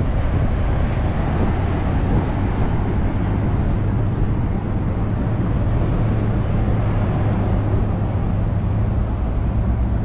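Niagara Falls heard close up: a deep, steady rushing of falling water.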